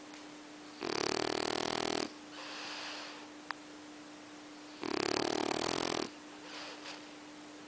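A pet snoring: two long snores about four seconds apart, each lasting over a second and followed by a softer breath, with a short click in between.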